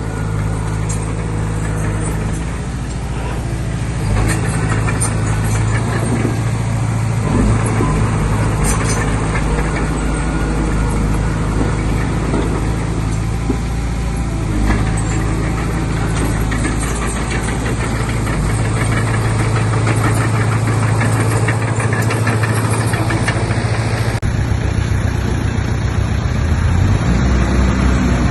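Heavy machine's diesel engine running steadily, with occasional clanks. The sound changes abruptly near the end.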